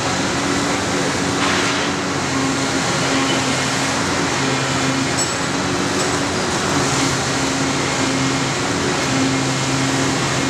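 Demolition excavator's diesel engine and hydraulics running steadily, a low drone over a constant noisy bed.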